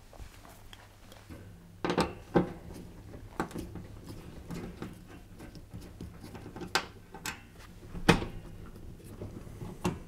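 Screwdriver undoing the screws of a dishwasher's rail support wheels: small clicks and scrapes of metal, with a few sharper knocks, the loudest about two seconds in and about eight seconds in.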